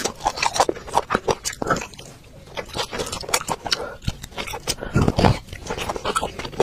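Close-miked mouth sounds of a person eating bone marrow: wet chewing and smacking with many quick clicks, and a louder, deeper wet sound about five seconds in.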